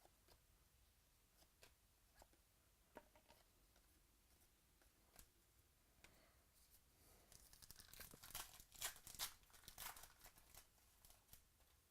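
Trading card pack wrapper being torn open and crinkled, a quick run of crackling from about seven to ten seconds in, after a few faint light ticks of cards being handled.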